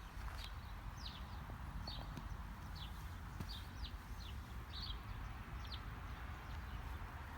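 Small bird chirping: short, high notes repeated about twice a second, over a steady low rumble.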